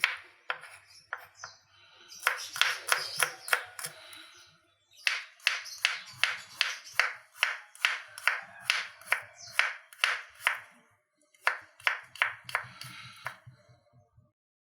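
Knife slicing shallots and garlic on a cutting board: a run of sharp, even chopping strokes, about two to three a second, with a couple of short pauses.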